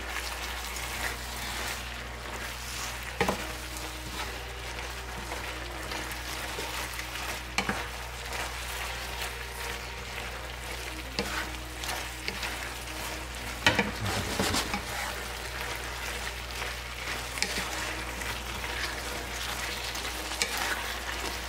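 Beef, tomato and mustard-green stir-fry sizzling in a pan as it is stirred, the sauce thickening with cornstarch, with a spatula knocking against the pan a few times.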